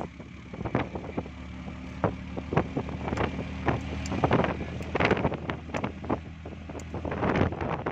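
A motor running steadily, with wind on the microphone and frequent sharp knocks and rattles.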